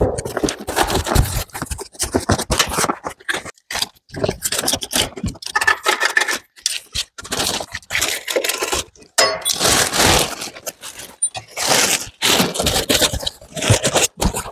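Packing material being pulled out of a metal shipping frame: plastic sheeting rustling and foam panels scraping, in irregular bursts with short pauses between them.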